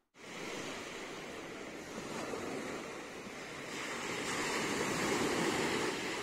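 Sea surf washing ashore, with wind on the microphone. The surf swells louder about four seconds in.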